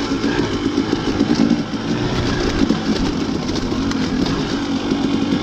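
Dirt bike engine running while riding, its note rising and falling in pitch, over steady riding noise.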